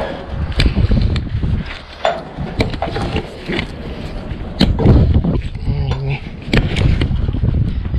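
Strong gusty wind rumbling on the microphone, with sharp metallic clacks every second or two as the steel tension buckles on a curtainsider trailer's side curtain are worked open.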